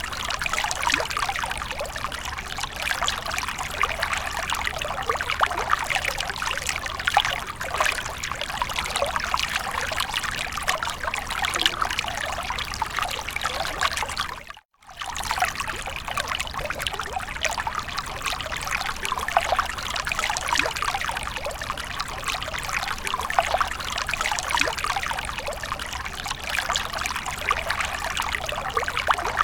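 Water from a fountain trickling and splashing steadily. It breaks off for a split second about halfway through.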